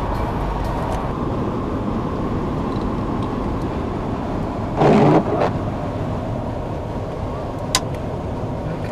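Steady road and engine noise inside a moving car's cabin. A short louder burst comes about five seconds in, and a single sharp click near the end.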